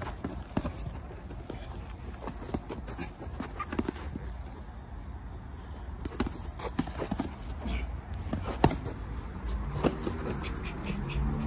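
Irregular thuds, knocks and scuffs from two men sparring: feet shuffling on hard ground and boxing gloves landing, with one sharp knock the loudest, about nine seconds in.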